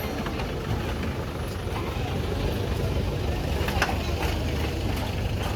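Steady low rumble of a running vehicle engine, with a couple of faint knocks about four seconds in.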